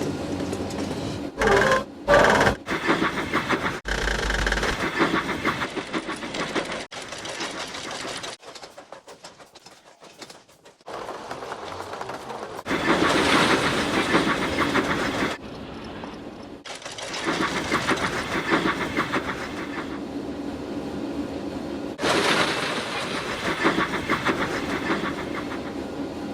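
Film sound effects of locomotives running fast along rails, with rail clatter. The sound changes abruptly several times, as from shot to shot. There are two short loud hits about two seconds in, and a quieter stretch near the middle.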